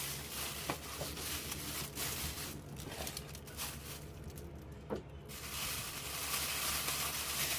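Plastic oven bag rustling and crinkling as the seasoned turkey is handled inside it, with a few light knocks. The rustling pauses for a couple of seconds in the middle, then resumes.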